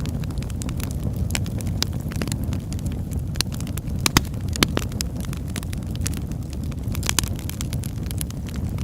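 Wood fire in a fireplace crackling, with scattered sharp snaps and a few louder pops over a steady low rumble of the flames.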